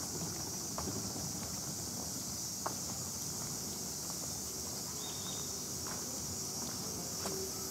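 A steady, high-pitched chorus of insects, with a few faint ticks.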